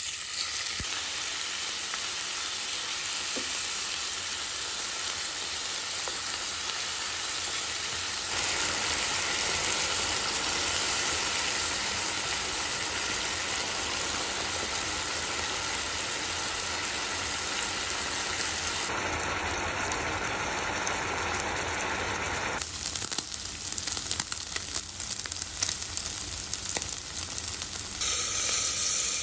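Chicken pieces frying in hot oil in a pan: a steady sizzle, with sharper crackles in the later part.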